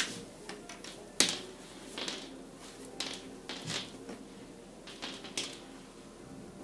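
Shiny satin tablecloth rustling and swishing as it is handled and laid flat by hand, in several short swishes. A sharp click at the very start and a louder one about a second in are the loudest sounds.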